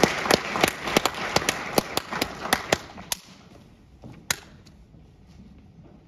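Audience applauding, with sharp claps close by about three times a second, dying away about three seconds in; one last clap a second later.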